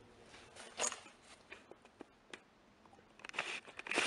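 Faint scattered clicks and rustles of a handheld camera being handled and moved, growing into a busier cluster of handling noise in the last second.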